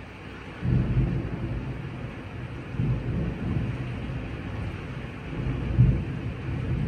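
Thunder rumbling over steady rain. The rumble starts suddenly about half a second in and rolls on in several swells, loudest near the end.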